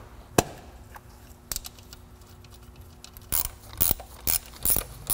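A sharp plastic click as a distributor cap is pressed onto the distributor, a few smaller clicks, then a quick series of light metallic clinks and knocks from hand tools and hardware being handled.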